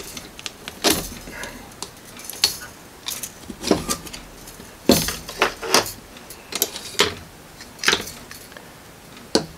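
Irregular small clicks and clinks of a 3D-printed plastic watch movement being handled and taken apart with a small tool, its piano-wire hairspring and balance lifted out.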